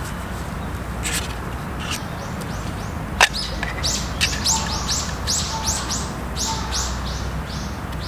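Mora knife scraping in quick, repeated high hissing strokes, about three a second, starting a couple of seconds in. A single sharp click comes just before the strokes.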